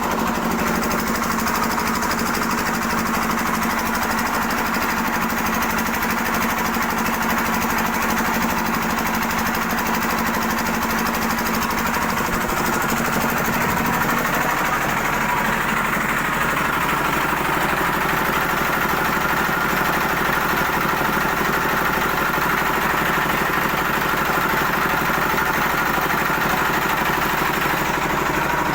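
An engine running steadily, its note changing about halfway through.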